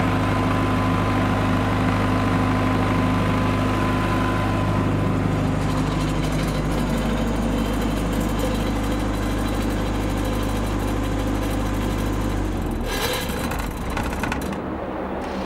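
Akita GF3-32 32 kVA diesel generator running steadily at constant speed, then shutting down about three seconds before the end; the engine hum stops abruptly and a few clicks and knocks follow.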